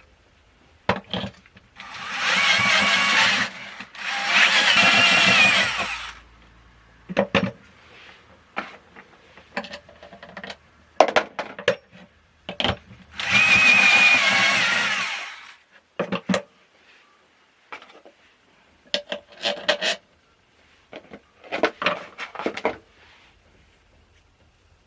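Power drill boring with a step bit to enlarge a pilot hole, running in three bursts of about two seconds each with a whining pitch. Short clicks and knocks come in between.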